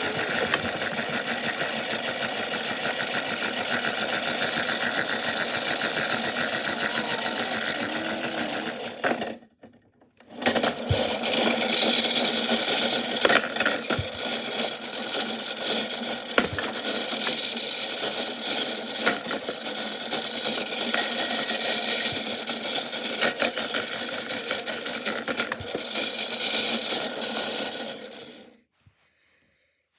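Washing machine running with a big rock inside, making a loud, dense, continuous rattling clatter. It cuts out for about a second after nine seconds, resumes, and stops shortly before the end.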